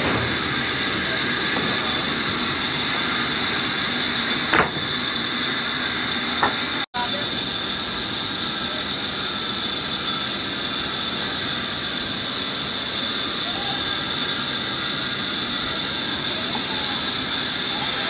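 Large band saw running and ripping a thick live-edge wooden slab, a steady high hiss that cuts out for an instant about seven seconds in.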